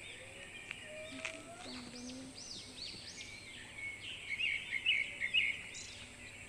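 Several small birds chirping and calling, many short rising-and-falling chirps overlapping, with a run of louder, quick chirps about four seconds in, over a steady faint high hiss.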